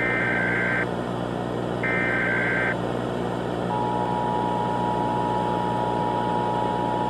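Emergency Alert System signal: the last two of three SAME header data bursts, each just under a second long and about a second apart, then the steady two-tone EAS attention signal starting a little after three and a half seconds in. A steady background hum runs underneath.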